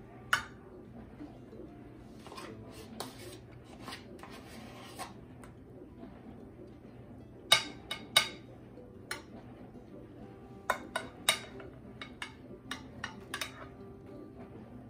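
A spoon clinking and scraping against a glass baking dish and a plastic tub as whipped topping is spread over a banana layer: scattered sharp clicks and taps, the loudest two coming about seven and a half to eight seconds in, with softer scraping in between.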